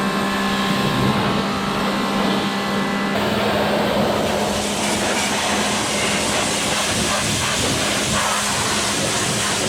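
Pressure washer running, a steady hum from its motor and pump under the loud hiss of the high-pressure water spray.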